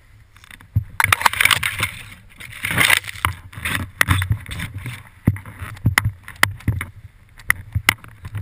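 Crunching and swishing of a person moving through deep powder snow, with scattered sharp knocks and bumps close by; no engine is running.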